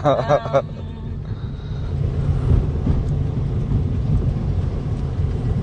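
Steady low rumble of engine and road noise inside a taxi's cabin.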